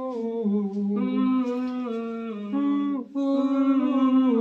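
A voice humming a slow melody without words, holding notes that step up and down in pitch, with short breaks about one second and three seconds in.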